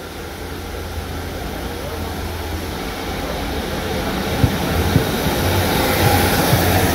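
GWR Class 150 Sprinter diesel multiple unit running into the platform, its underfloor diesel engine hum growing steadily louder as it draws near. From about halfway in, sharp clicks of wheels over rail joints come through as it passes close by.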